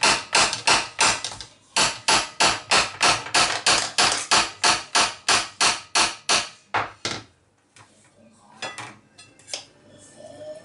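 A stainless steel meat mallet hammers repeatedly on a roasted pork chop joint to break it apart between the bones, at about three sharp blows a second. The blows pause briefly about one and a half seconds in, die away around seven seconds in, and give way to a few quieter knocks.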